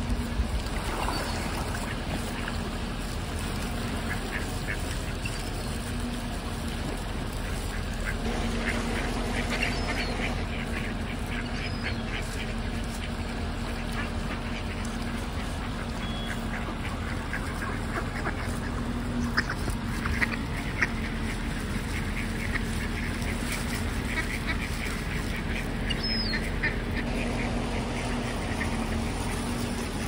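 Mallard ducks quacking in repeated bouts of quick calls, over a steady low hum and background noise.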